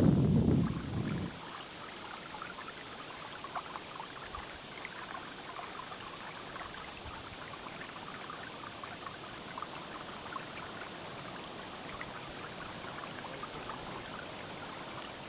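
A small stream trickling and babbling steadily. Wind buffets the microphone with a low rumble for about the first second.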